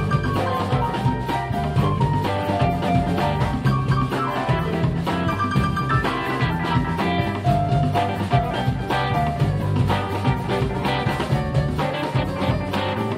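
Live blues band playing an instrumental passage: a steady bass and drum-kit groove under a lead line of quick single notes.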